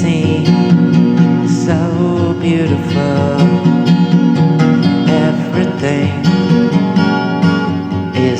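Instrumental passage of a song led by strummed acoustic guitar, with no singing.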